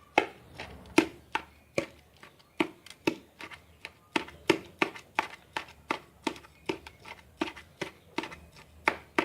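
A spoon knocking repeatedly against a funnel, about two or three sharp knocks a second, as it pushes rice stuffing down into lamb intestine.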